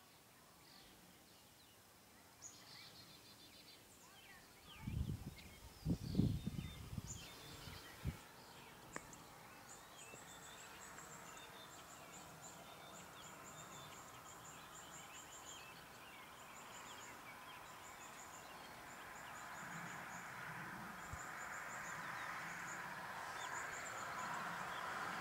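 Outdoor ambience of birds chirping in short repeated high notes. A few low thumps come about five to eight seconds in, and a steady hiss builds over the last several seconds.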